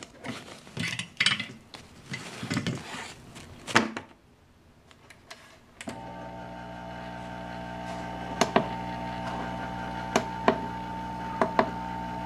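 Handling noises and knocks, then about six seconds in a hot air rework station's blower switches on and runs with a steady whir made of several steady hum tones. A few sharp clicks, mostly in pairs, sound over it.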